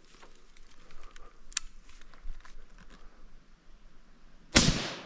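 Light rustling and snapping of leaves and twigs underfoot and against the body while stalking through undergrowth, then a single rifle shot near the end that echoes away over about a second.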